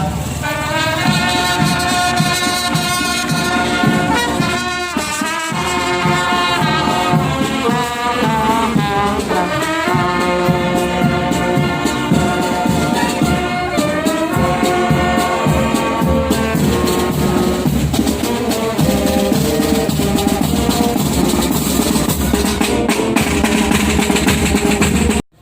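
Brass band music with a steady beat, horns holding long notes over drums.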